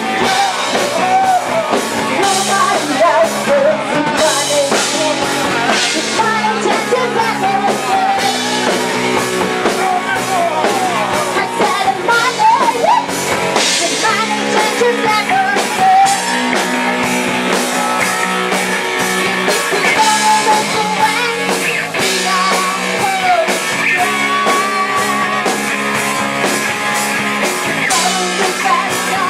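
Live rock band playing a song with a singer, drum kit and electric guitar.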